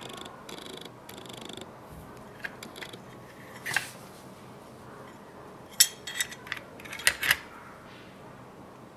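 Karambit knives and their hard plastic Kydex sheaths being handled: soft rustling at first, then sharp clicks and taps as metal and plastic knock together, one near the middle and a quick cluster of louder ones in the second half.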